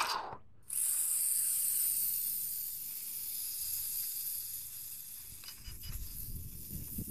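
WL Toys V959 mini quadcopter's small motors and propellers whining high at full throttle. The whine starts abruptly about a second in, holds steady and eases a little later on.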